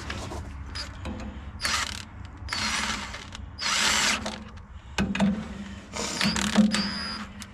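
A wrench running in the bolts of a hub puller on a tractor rear axle, in four or five short bursts of clicking and whirring with pauses between them.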